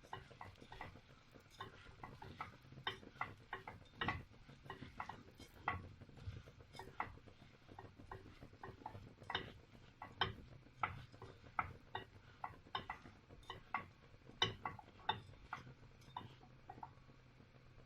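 A spoon stirring rice with sautéed liver, gizzards and spices in a pot, with irregular light clicks and scrapes against the pot, about two or three a second, over a faint low hum.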